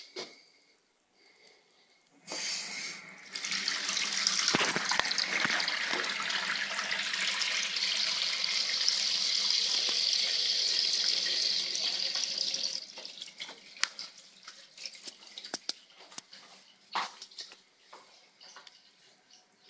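Kitchen tap running into a stainless steel sink: a steady stream of water that starts about two seconds in and is shut off suddenly about thirteen seconds in. After it stops there are a few faint clicks and knocks.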